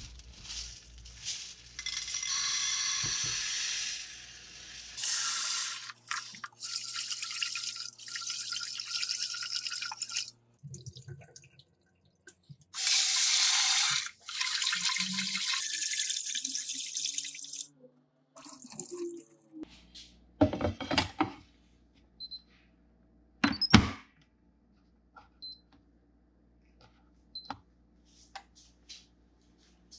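Tap water running into a rice cooker's inner pot as rice is rinsed, in several spells of a few seconds each. A few loud knocks follow, then several short, high electronic beeps from the rice cooker as it is set.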